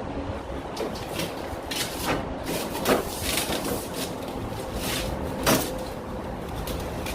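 Knocks and clicks from handling a new Samsung refrigerator's doors and fittings, with two sharper knocks, one about three seconds in and one about five and a half seconds in.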